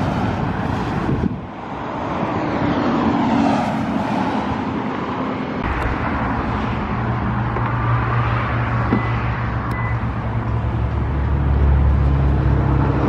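Road-traffic and car-engine noise: a vehicle passes with a swell that rises and falls a few seconds in. Then a nearby engine runs with a steady low hum that grows louder near the end.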